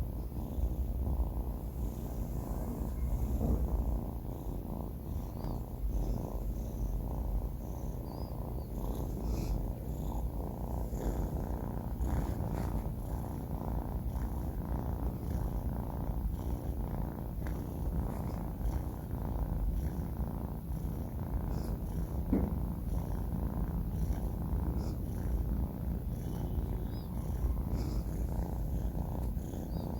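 A sleeping kitten purring: a steady low rumble that keeps up without a break.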